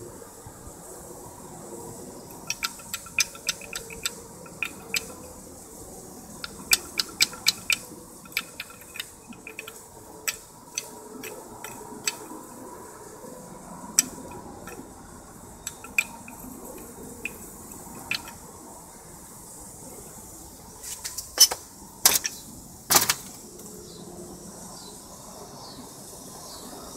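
Removed ball joint, control arm and hand tools clinking and tapping, metal on metal and on concrete, in scattered clusters of light clicks, with a few louder ringing metal strikes near the end.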